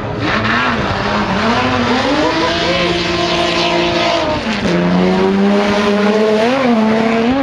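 Racing car launching with wheelspin: the engine is revved, held at high revs while the tyres squeal, drops sharply in pitch about four and a half seconds in, then pulls away at a steady pitch with a brief blip near the end.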